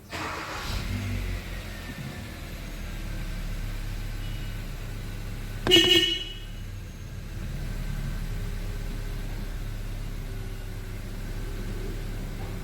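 Kia Cerato car engine catching abruptly and then running steadily at idle, with one short car-horn toot about six seconds in.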